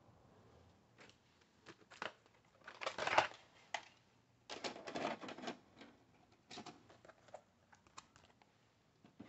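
A VHS cassette handled out of its plastic case and pushed into the tape slot of a JVC HR-XVS44U S-VHS/DVD combo: a run of irregular plastic clicks and rattles, loudest about three seconds in and again around five seconds, then lighter mechanical clicks as the deck loads the tape and starts playing.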